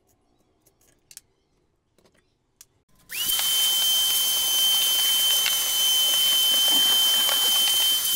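Handheld rotary tool switched on about three seconds in and running at speed with a steady high whine. A few faint handling clicks come before it.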